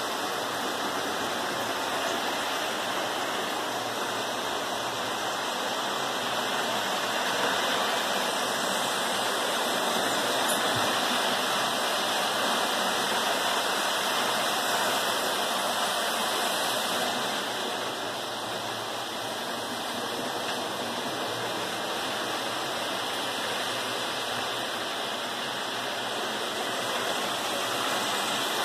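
Several electric toy trains running at once on a three-rail tinplate layout: a steady whirring rumble of their motors and wheels on the metal track, a little quieter for a few seconds past the middle.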